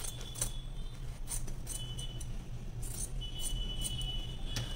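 Large tailor's scissors snipping through stiff blouse canvas: a string of short, sharp snips at uneven intervals over a steady low hum.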